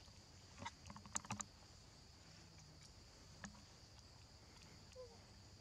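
Quiet outdoor ambience: a steady high insect drone, a quick cluster of soft clicks and taps about a second in, one more click midway, and a short falling call near the end.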